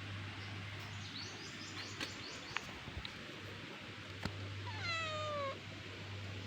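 A cat meows once about five seconds in, a single call that falls in pitch. Earlier there is a quick run of short high chirps and a few sharp clicks, over a steady low hum and hiss.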